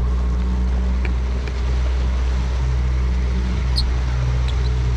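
Boat engine running steadily, a constant low drone with an even hum underneath.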